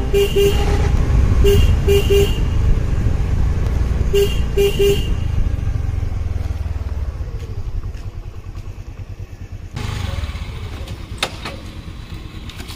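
Motorcycle horn giving short beeps in quick groups of two or three over the low running of a motorcycle engine, which fades away about halfway through. The honking is to get a walker's attention.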